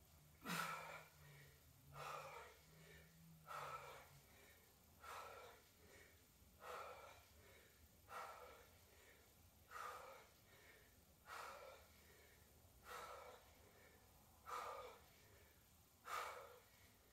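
A woman breathing hard from exertion in a push-up position, a short, sharp breath about every one and a half seconds.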